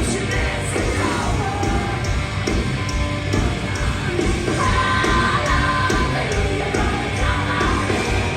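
Heavy rock band playing live at full volume: distorted guitars and drums with steady cymbal hits, and shouted vocals over them.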